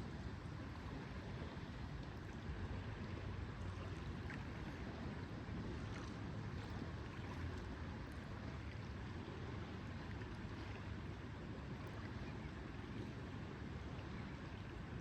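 Steady lakeside ambience: an even wash of water and wind with a low rumble underneath, and a few faint light ticks scattered through it.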